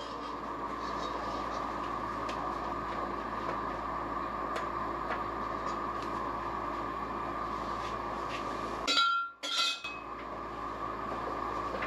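Gas burner hissing steadily under a stainless steel saucepan of milk while a metal spoon stirs it, giving faint clinks against the pan every second or two. About nine seconds in comes a louder, brief clatter of metal as the spoon is lifted out and set down.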